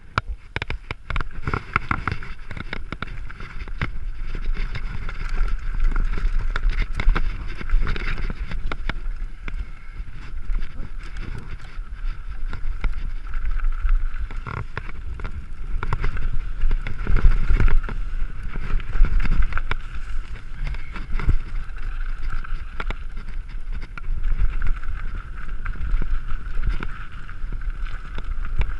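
Mountain bike riding a rough trail, recorded on a GoPro: a constant low rumble of wind on the microphone, frequent clicks and rattles from the bike over the ground, and a steady high hum.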